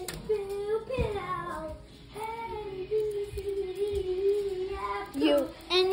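A child's voice singing a melody, with one long held note through the middle and quick sliding notes near the end.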